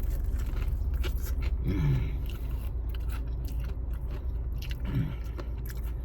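A person chewing and biting into fried chicken, with wet crunching and smacking clicks, and two short falling hums of the voice mid-bite.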